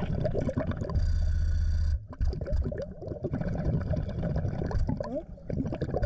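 Underwater, a Garrett handheld pinpointer probing gravel buzzes steadily for about a second, alerting on a metal target. Around the buzz, short bubbling and gurgling water sounds come and go.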